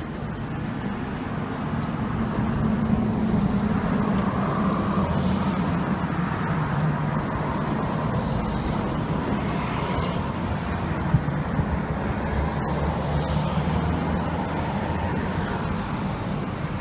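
Road traffic noise: vehicle engines running with a low steady hum, under a constant wash of street noise.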